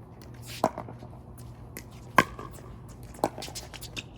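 Pickleball paddles hitting the plastic ball back and forth in a rally: three sharp pops over about three seconds, the second the loudest.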